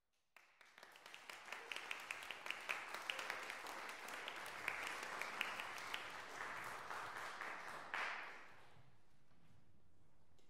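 Audience applauding, swelling over the first couple of seconds and stopping about eight and a half seconds in.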